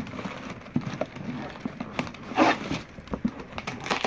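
Packing wrap crinkling and rustling as a wrapped item is unwrapped by hand, with a few light knocks and a louder rustle about two and a half seconds in.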